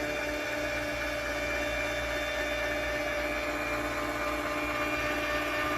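Electric motor of a vehicle scooter lift running steadily with an even whine, raising a mobility scooter to working height.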